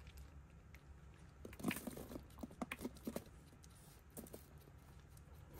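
Faint, quick light clicks and taps, a cluster in the middle and a couple more near the end: hands working a hamster's stuffed cheek pouches, with small dry cat-kibble pellets clicking out onto its plastic cage.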